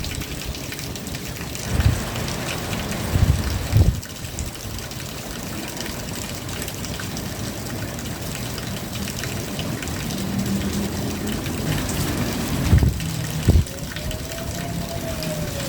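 Steady rain falling, an even hiss of drops, broken by a few short low thumps. A low hum comes in about two-thirds of the way through, and a faint tone rises and falls near the end.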